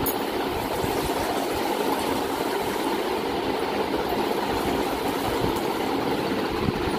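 A steady rushing noise, even throughout, while mango drink is poured from a steel bowl into a glass and back.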